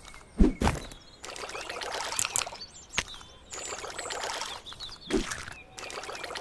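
Wet splashing and trickling water sound effects in three short bursts. Low plops come about half a second in and again near the end.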